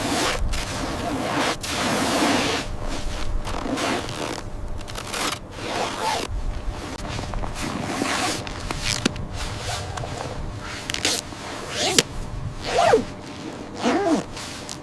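Continuous rustling and scraping of clothing and gear being handled, with scattered sharp clicks and a sharper snap about twelve seconds in.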